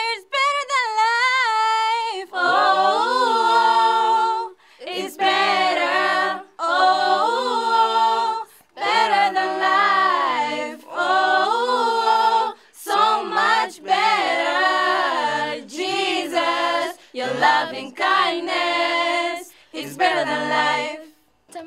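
Small group of students singing an unaccompanied worship song together, in phrases a second or two long with short breaks for breath between them.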